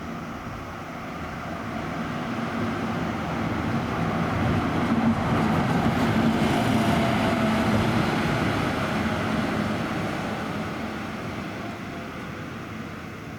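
A bus driving past: its engine and road noise grow louder to a peak about halfway through, then fade as it moves away.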